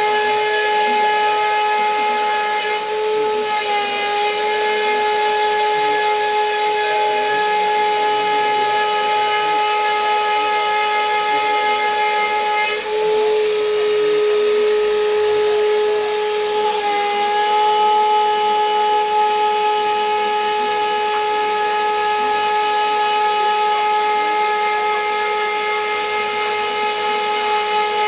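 Roland CNC milling machine's spindle whining steadily as the cutter mills a quadcopter frame, over a hiss of cutting. The whine's pitch dips briefly a few times.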